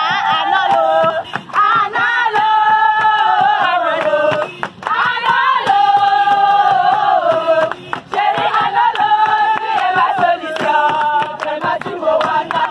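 A group of voices singing together outdoors, with one woman's voice close and loudest. The song moves in long held phrases that slide down in pitch at their ends, with scattered hand claps.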